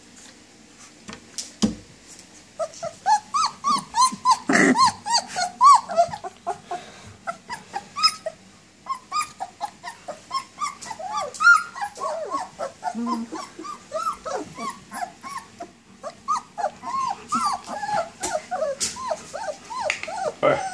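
A litter of 19-day-old German Shepherd puppies whining and whimpering for their mother: many short, high cries that rise and fall, overlapping one another, starting about two seconds in.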